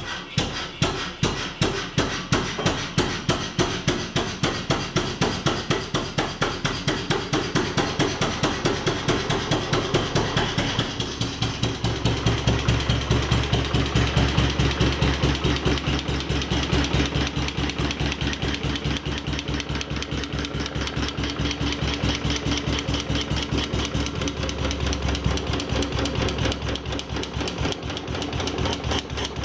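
Lorenz KS stationary engine running in a steady, even beat of firing strokes while its carburettor is adjusted by hand. From about eleven seconds in it sounds louder and deeper.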